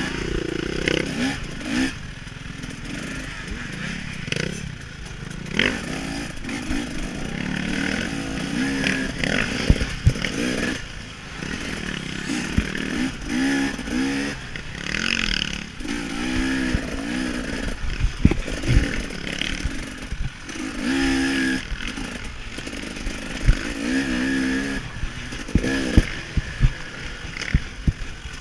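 KTM 300 XC-W two-stroke dirt bike engine heard from the rider's chest, revving up and falling back again and again as the throttle is worked, with frequent sharp knocks and clatter.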